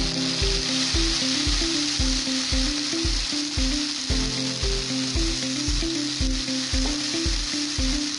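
Potato chunks and a cumin, black pepper and red chilli paste sizzling in hot oil in a wok as they are stirred with a spatula. Background music with a steady beat of about two a second plays underneath.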